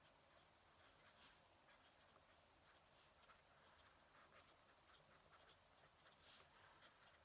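Fountain pen nib scratching faintly across paper in short, irregular strokes, with a slightly louder stroke about six seconds in.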